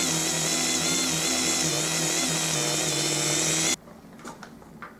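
Handheld rotary tool running at high speed with a felt polishing wheel buffing a brass leg ferrule, its whine wavering a little under load. It cuts off suddenly near the end, leaving a few faint taps.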